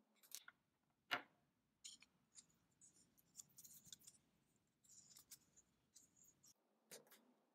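Faint handling sounds of small plastic parts: a sharp tap about a second in as a 3D-printed plastic valve is set down on the table, then light crinkling and ticking as a roll of thread seal tape is handled and its end peeled loose.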